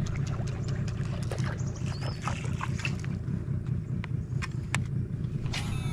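Steady low rumble with many scattered sharp clicks and a brief high chirp about two seconds in.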